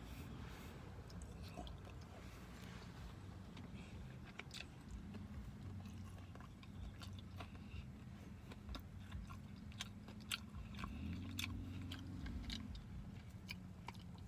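A person chewing and biting into lemon pepper chicken wings close to the microphone, with many short clicks from the mouth scattered throughout, over a steady low hum. A brief low pitched hum rises above the chewing about three-quarters of the way through.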